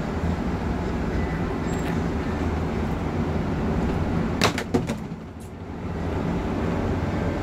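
Steady low drone of a shuttle bus's engine and tyres, heard from inside the cabin while it drives. A little past halfway a quick cluster of sharp knocks or rattles cuts through, and the drone dips for about a second before it returns.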